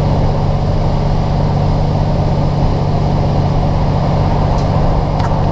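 Steady low drone inside the carriage of a Class 150 diesel multiple unit under way: its underfloor diesel engine and wheels running on the rails.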